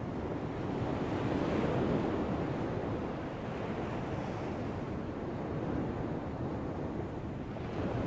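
Atlantic ocean surf breaking on a sandy beach: a continuous wash over a steady low rumble. One wave swells and crashes a second or two in, and another comes near the end.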